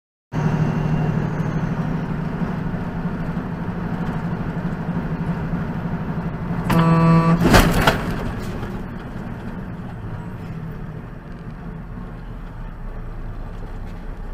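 Vehicle driving noise from a dashcam, with a car horn sounding for about a second midway, then a sharp bang right after it.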